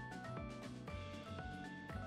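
Background music: a melody of short held notes over a steady drum beat.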